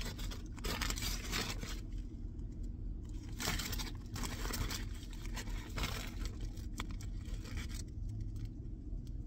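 Foil-and-paper sandwich wrapper crinkling and tearing as it is pulled open by hand, in irregular rustling bursts with short pauses.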